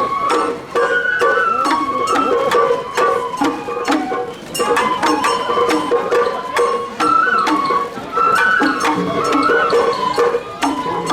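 Sawara-bayashi festival music: a high bamboo flute playing a stepping melody over repeated drum strikes.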